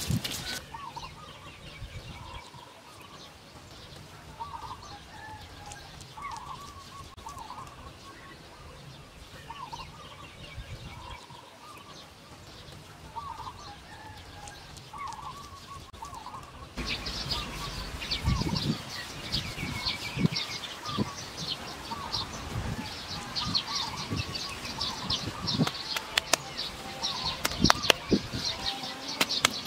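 Short bird calls repeating over quiet outdoor ambience. After an abrupt change a little past halfway it gets louder, with dense high chirping and the thumps and scrapes of dry earth clods being broken and pushed by hand.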